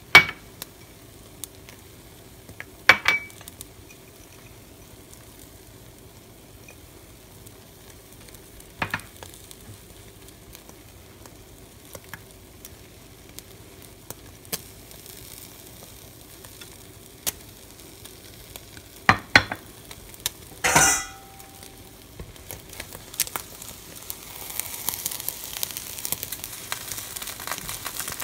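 Egg omelette cooking in a nonstick frying pan with a faint sizzle, broken by a few sharp clinks and knocks of bowls and utensils as toppings go in. Near the end the sizzle grows louder as a spatula works under the omelette to fold it.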